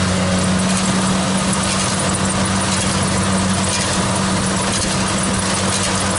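Kubota DC70 Plus combine harvester's diesel engine and machinery running steadily: a constant low engine hum under a loud, even mechanical hiss.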